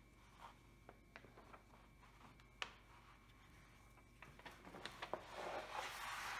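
Faint paper handling: a sheet of cover paper being laid onto and shifted over the glued canvas of a diamond painting, with scattered light taps and ticks and a rustling that grows louder over the last couple of seconds.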